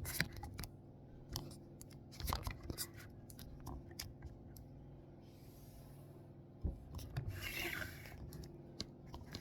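Hands working at a Lego set's cardboard box and packaging: scattered light clicks, scratching and rubbing, with two short rustling hisses in the second half.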